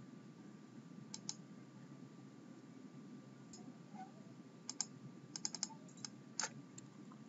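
Computer mouse clicks, two about a second in and two more near the middle, then a quick run of keyboard keystrokes as a short word is typed into a field. Faint steady hiss throughout.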